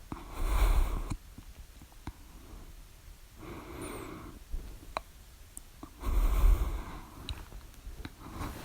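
A person breathing heavily close to the microphone: three breaths about three seconds apart, each blowing a rumble into the mic. Faint clicks come between them.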